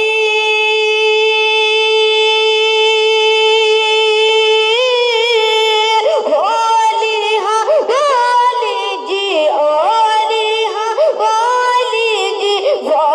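A boy's voice singing a naat unaccompanied, holding one long high note for about five seconds, then breaking into quick, wavering turns of melody.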